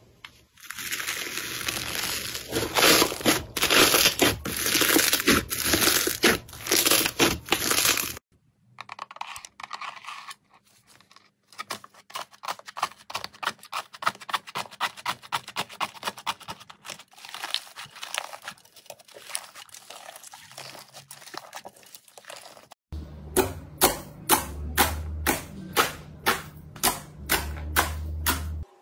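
Hands squishing slime, in three short takes. First come dense crackles from bubbly red slime. After a break about eight seconds in, a long run of small crackles comes as fingers break a crusted blue slime. Near the end, glossy purple slime gives regular pops, about two or three a second, as fingertips press into its air pockets.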